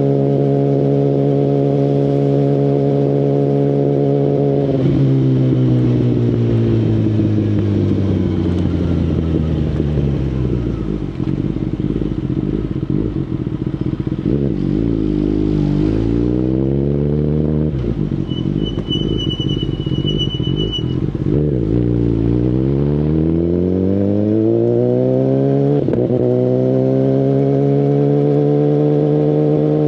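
2019 Kawasaki Ninja ZX-10RR inline-four through an Akrapovic Evolution Line carbon full exhaust. It cruises steadily, then the engine note falls as the bike slows from about five seconds in and stays low through the middle, with a short rise and fall. From a little past twenty seconds it climbs under acceleration, drops once at a gear change and settles into steady cruising again. A rapid high beeping is heard briefly in the middle.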